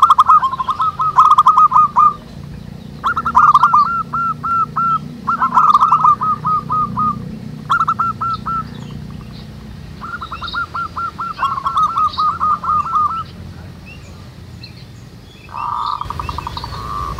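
Zebra doves (perkutut) cooing, several phrases of quick rolling coo notes in bursts with short pauses between, overlapping as more than one bird calls. Faint high chirps of small birds sound behind them, and a steady buzzing note comes in near the end.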